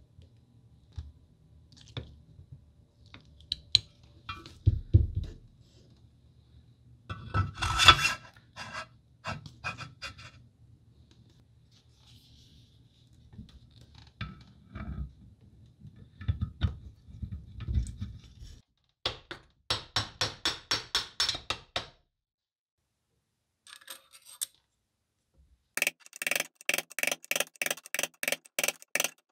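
Workshop handling noises: scrapes, knocks and clicks of metal parts being worked on over a low hum. These are followed by two runs of quick, evenly spaced clicks with a short silence between them.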